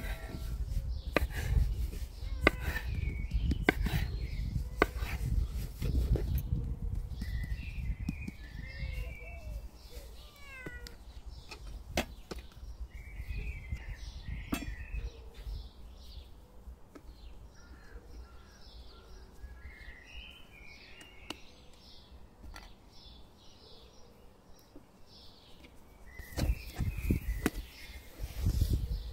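Sharp knocks and soft handling sounds of bread dough being worked on a wooden board, with a low rumble in the first few seconds and again near the end. Through the quieter middle, short high animal calls come in small clusters every few seconds.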